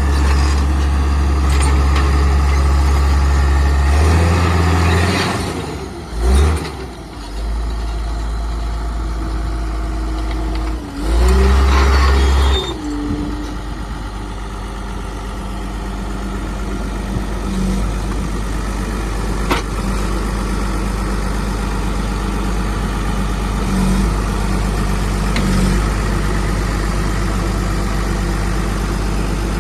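John Deere 700J crawler dozer's 6.8-litre PowerTech diesel engine running, its level and pitch shifting twice in the first dozen seconds, then running steadily.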